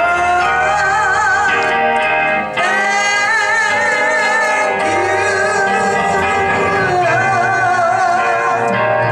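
Church closing song: singing with instrumental accompaniment, long held notes with vibrato and a short break between phrases about two and a half seconds in.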